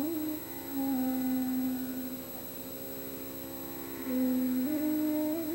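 Slow background music of long, steady held notes, one low tone at a time, stepping to a new pitch every second or few.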